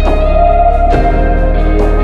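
Background music: sustained guitar notes over a steady low bass, with new notes struck at the start and again about a second in.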